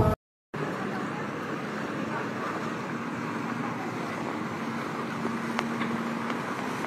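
Street traffic on a flooded, wet road: a steady hiss of vehicles passing, with a faint engine hum for a few seconds in the middle. It comes in after a brief cut to silence at the start.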